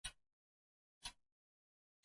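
Clock ticking steadily at one tick a second: two short, sharp ticks, each with a quick fading tail, and dead silence between them.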